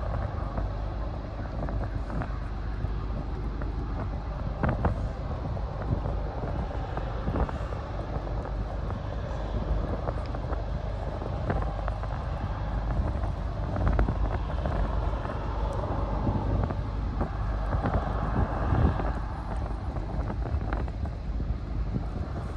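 Wind on the microphone with a steady low rumble beneath it, rising in a few brief gusts.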